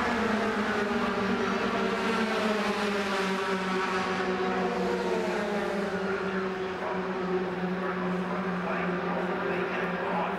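Racing pickup trucks' engines running at speed on an oval track: a continuous, steady drone of several engines, with the pitch slowly bending up and down as the trucks go by.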